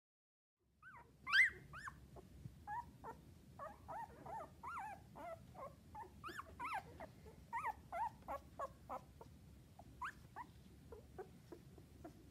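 Newborn puppies squeaking: a quick run of short, high squeaks that slide up and down in pitch, several a second, starting about a second in, with the loudest squeak just after that.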